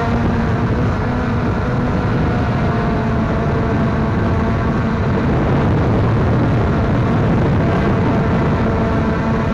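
Quadcopter drone's electric motors and propellers running with a steady hum and rush, heard through the drone's own onboard camera.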